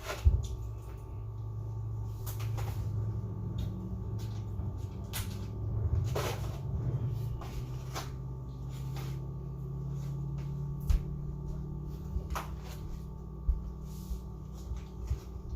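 A sharp knock just at the start, then scattered small clicks and cracks of shrimp shells being peeled and food handled by hand, over a low steady hum.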